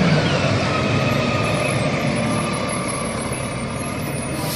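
Rear-loader garbage truck running: a steady engine and road noise that gradually fades, with a faint whine wavering through it.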